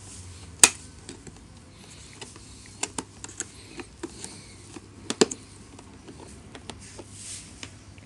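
Sharp plastic clicks and taps as the rear filter grille of a Fantom İkoncan vacuum cleaner is pried at and unclipped, exposing the HEPA filter behind it. The loudest click comes about half a second in, with a small cluster around three seconds in and a double click a little after five seconds in.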